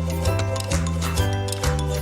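Instrumental background music with a steady beat and a bass line that changes note about twice a second.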